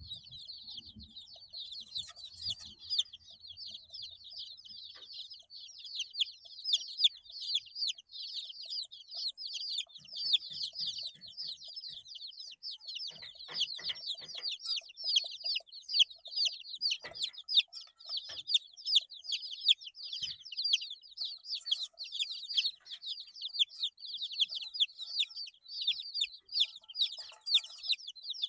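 A brood of 8-day-old baby chicks peeping continuously, many short high-pitched chirps overlapping. A few faint scratches or taps come in among the peeps.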